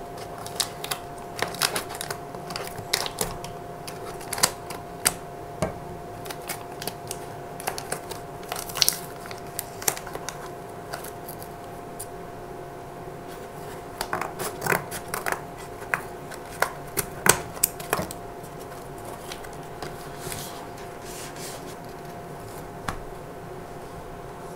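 Scissors snipping through a cardboard mailer package, with irregular bursts of clicks, crinkling and tearing as the packaging is cut and pulled open. A steady faint hum runs underneath.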